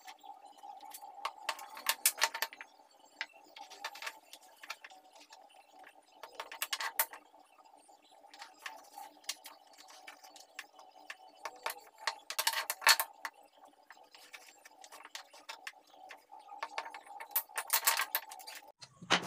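Pencil marking lines on small wooden blocks and the blocks being shifted and set down on a wooden bench: short clusters of light scratches and taps a few seconds apart, over a faint steady hum.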